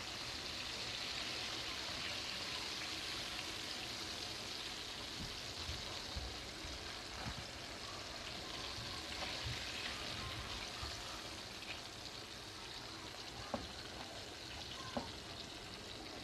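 Masala-coated chicken pieces deep-frying in hot oil in a kadai: a steady sizzle, with a few short clicks of the metal skimmer near the end.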